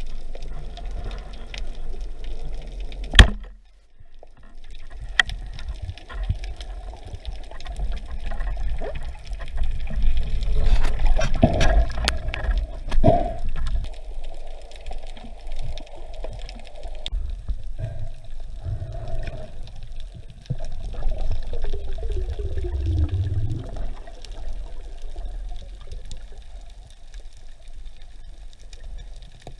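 Water heard underwater: a steady low rumble with gurgling and rushing water. A single sharp crack comes about three seconds in, and there are a few knocks around the middle.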